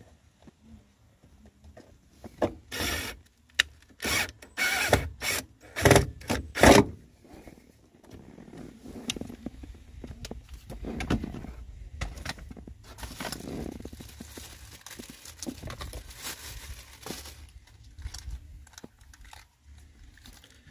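Cordless drill driving a self-tapping screw through a ground wire's ring terminal into a pre-drilled hole, in several short bursts a few seconds in, then quieter scraping and rustling of wires being handled.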